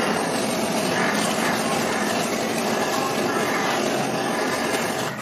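Handheld gas torch running with a steady rushing noise as its flame sears a slice of luncheon meat in a metal tray.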